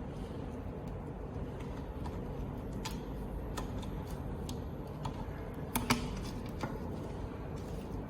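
Scattered light clicks and taps from handling the head unit's plastic cable connectors, the loudest a quick pair about six seconds in, over steady low background noise.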